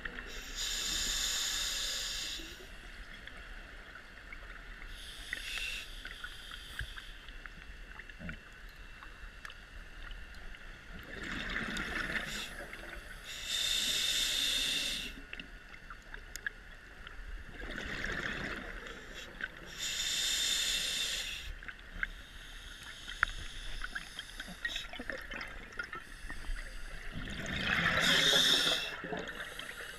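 Scuba diver breathing through a regulator underwater: a hiss on each inhale and a rush of exhaust bubbles on each exhale, in slow breaths repeating several times.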